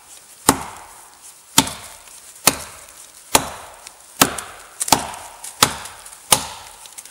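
Axe chopping into the trunk of a standing oak: eight sharp blows, a little under a second apart. The oak is very dense and hard, like hitting concrete.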